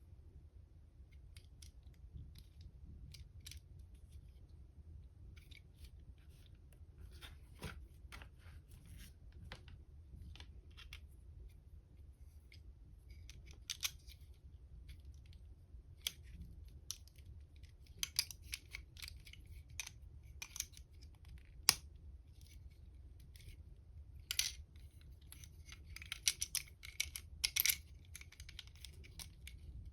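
LEGO plastic bricks being handled and pressed together: irregular small clicks and rattles, getting busier and louder in the second half with a stretch of scratchy rummaging near the end.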